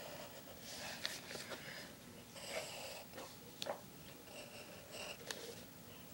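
Faint graphite pencil strokes scratching on lined paper, with a few light ticks of the pencil tip. A person's breathing sounds close by.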